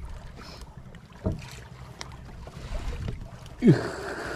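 Steady low rumble of wind and the small wooden fishing boat while a caught barracuda is being unhooked on deck. A short downward-sliding tone sounds about three and a half seconds in, with a fainter one earlier, followed by a brief hiss.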